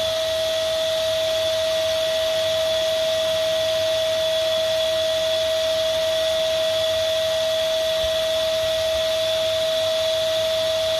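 Vacuum cleaner motor running steadily, with a constant whine over its airflow hiss.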